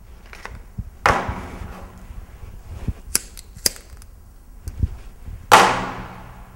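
A cigarette lighter struck twice with two short sharp clicks as a cigarette is lit. Before and after, two louder sudden sounds that fade away over about a second.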